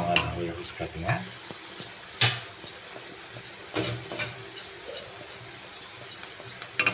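Food sizzling steadily in hot oil in a pan as chili powder is tipped in from a steel plate, with a few sharp clicks of the metal plate knocking and scraping against the pan, about two, four and seven seconds in.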